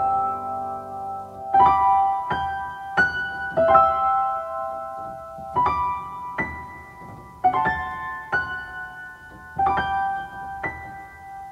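Instrumental piano music with no singing: slow chords and single notes struck one after another, each left to ring and fade.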